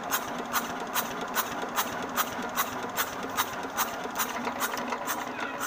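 Diesel fuel injector nozzle of a Usha single-cylinder diesel engine, held outside the engine on its fuel line and spraying as the engine turns: short sharp pops about two and a half times a second over a steady mechanical whirr. This is a nozzle spray test during adjustment for a starting problem.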